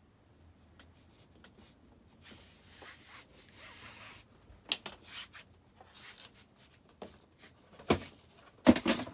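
Fabric rustling and rubbing as a long sewn fabric tube is scrunched and slid along itself to turn it inside out. A few short, sharp louder rustles come about five seconds in and twice near the end, the last the loudest.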